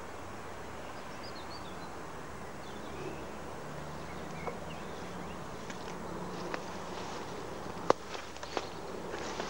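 An insect buzzing close to the microphone over steady outdoor background noise, the buzz swelling and fading in the middle. Several sharp clicks come in the second half, the loudest a little before the end, and a few faint high chirps are heard early on.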